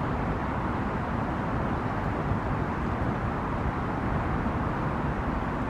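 Steady rumble of road traffic, an even noise with no separate events standing out.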